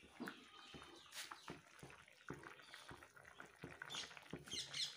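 Bean and potato curry simmering in a kadai on a gas stove: faint, irregular bubbling and popping. High-pitched chirps come in near the end.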